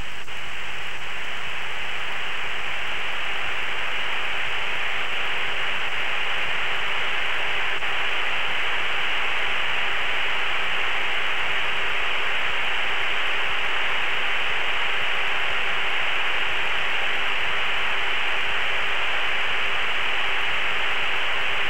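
Steady hiss of the T-45 jet's intercom and radio audio feed: an even rush of noise, thin like a telephone line, with a faint low steady tone under it and no voices.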